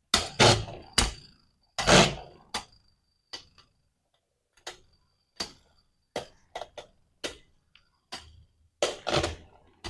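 Two spinning Beyblade tops clashing and knocking against each other and the stadium, giving irregular sharp clicks and knocks, some with a faint high ring. The hits are heaviest about half a second and two seconds in, then come more sparsely.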